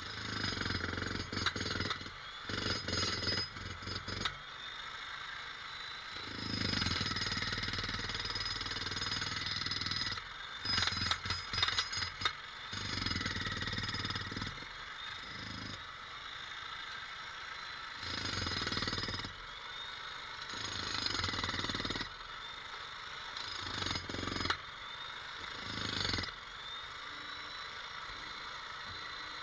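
Jackhammer hammering in repeated bursts of one to four seconds, about eight in all, with short pauses between them.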